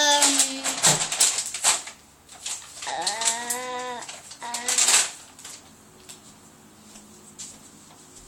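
Small plastic toy figures clicking and tapping as they are handled and set down, with a child's drawn-out thinking 'hmm' about three seconds in. Quieter from about five seconds on.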